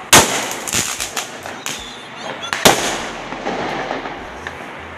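Fireworks going off: a loud bang just after the start and another about two and a half seconds later, with smaller cracks between them, each bang trailing off in an echo.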